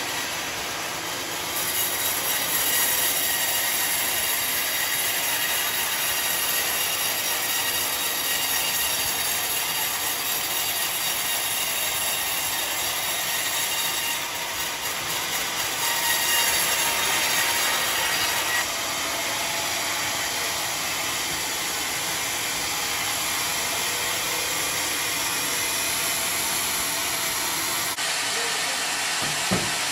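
Sawmill band saw blade running through a slab of rotting Johar wood: a steady high hiss and whine. It grows louder about two seconds in and drops back a little past halfway.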